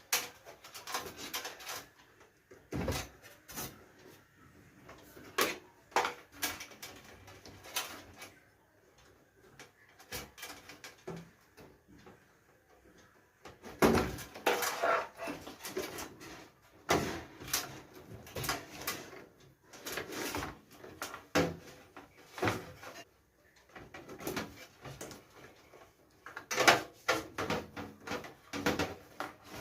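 Hands taking apart a desktop PC: irregular clicks, knocks and scrapes of metal and plastic parts being handled, with louder clusters around the middle and near the end.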